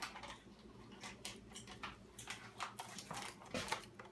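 Irregular light clicks and clinks of dishes and utensils being handled while an ingredient is added, several taps a second with a louder cluster about three seconds in.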